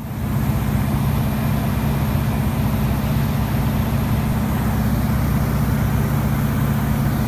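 Propeller-driven piston-engine aircraft in flight: a steady, loud, low engine drone.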